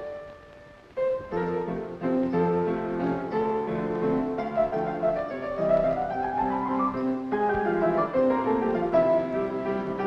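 Orchestral dance music with piano and strings from a 1930s film soundtrack. It comes in about a second in after a brief lull, with a rising sweep in the middle.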